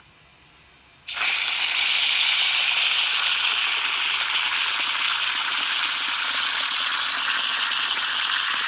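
Water running steadily from the compost water heater's outlet into a container. It starts abruptly about a second in and runs at an even level.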